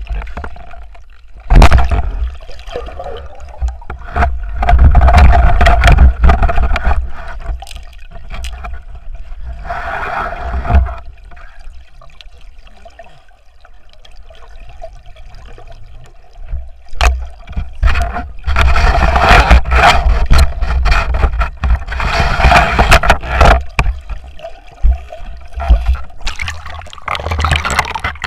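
Muffled water noise picked up by an underwater camera as the diver moves: swelling surges of rushing, gurgling water with scattered knocks and scrapes against the housing, longest and loudest over much of the second half, over a faint steady hum.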